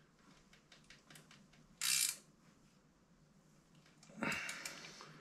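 Ratchet wrench clicking in quiet short runs as a bolt is worked on the mid-drive motor mounting, with two louder brief metal scrapes about two seconds and about four seconds in.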